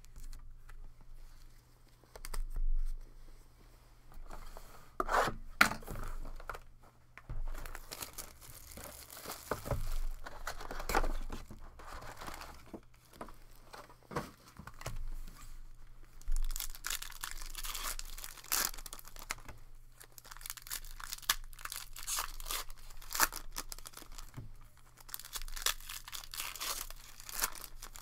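Shiny foil trading-card pack wrappers being torn open and crinkled by hand, in irregular bursts of crackling, with cards being handled.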